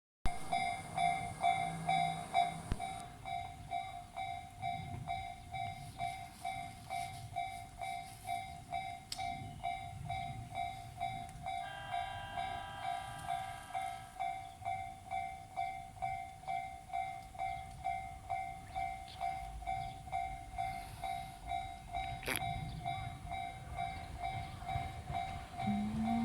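Japanese railway level-crossing warning bell ringing steadily at about two strikes a second, the electronic "kan-kan" that signals a train is approaching. For about two seconds near the middle a second, higher tone sounds over it, and near the end a low rising whine begins.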